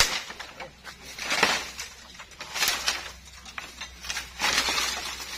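Bamboo leaves and stems rustling in about four noisy bursts, a second or so apart.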